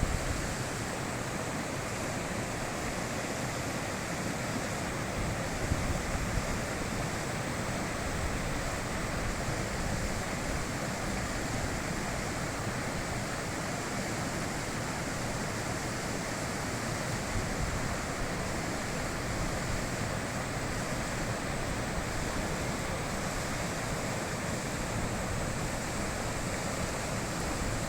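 High-mountain river rushing: a steady, even noise of water flowing over stones.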